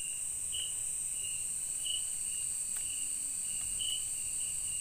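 Night insects in tropical forest: a steady high-pitched drone with a lower chirp repeating about every two-thirds of a second.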